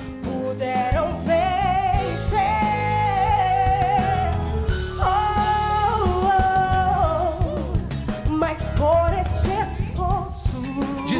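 A woman singing a Portuguese gospel ballad with a live band, holding long notes with vibrato and sliding between pitches over bass and drums.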